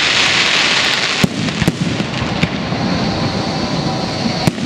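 Aerial fireworks display: several shells bursting with sharp bangs over a continuous hiss and crackle, the crackle loudest in the first second.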